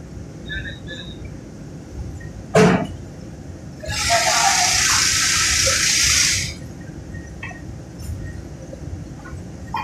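Steady flour-mill machinery noise underneath. A single sharp knock comes about two and a half seconds in. About a second later a loud, even hiss starts, lasts about two and a half seconds, and cuts off.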